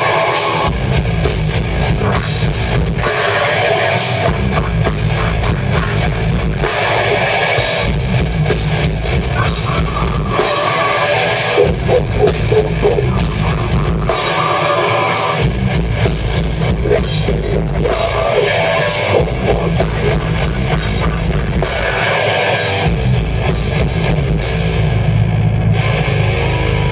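A live heavy rock band playing loudly: drum kit and guitars, with the bass and kick dropping out for a moment every few seconds.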